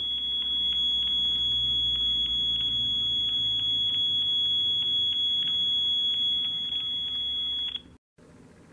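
A single steady high-pitched tone coming over a phone call on speakerphone, held unchanged for nearly eight seconds and then cutting off suddenly.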